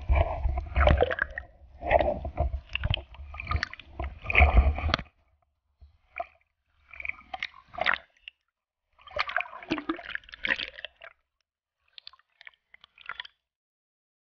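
Seawater sloshing and splashing against a GoPro held at the surface as it dips in and out of the water. The splashing is loud and nearly continuous for the first five seconds, then comes in shorter, quieter bursts with gaps.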